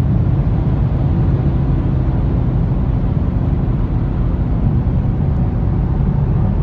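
2023 Camaro SS 1LE's 6.2-litre V8 running through its NPP exhaust at a steady, low engine speed: a loud, rough, deep drone with no rise or fall in pitch.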